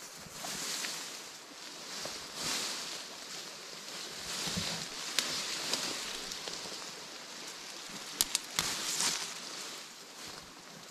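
Rustling of leaves and plant stems as wild greens are picked by hand, coming in swells, with a few sharp clicks of stems snapping, a small cluster of them about eight seconds in.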